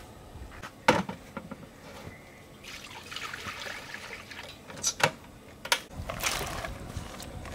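Cooking oil poured from a stainless-steel pitcher into a steel wok, a trickling pour lasting a couple of seconds, among sharp knocks and clinks of cookware, the loudest a knock about a second in. Near the end sliced garlic slides off a plate into the oil.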